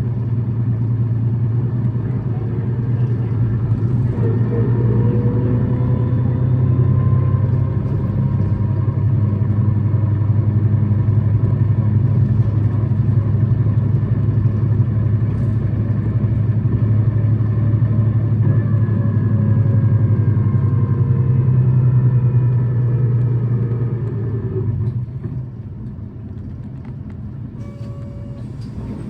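Tokyu city bus engine and drivetrain heard from inside the cabin, pulling with a steady low drone and a thin whine above it that slowly shifts in pitch; the bus is one noted for an abnormal running noise. About 25 seconds in the engine note drops and the sound gets quieter, as the bus eases off.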